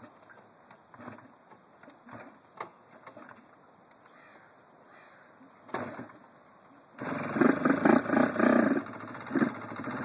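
1994 Suzuki RGV250's two-stroke V-twin on a cold start. After faint clicks and a short burst of noise, it fires about seven seconds in and runs loudly, its level rising and falling as the throttle is worked.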